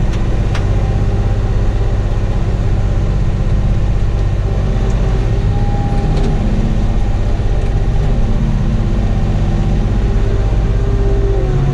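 Kioti tractor's diesel engine running steadily, heard from inside the cab.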